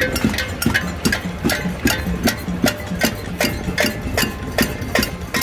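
Pots and pans being banged by a marching crowd: a dense, irregular clatter of strikes, several a second, some ringing on briefly.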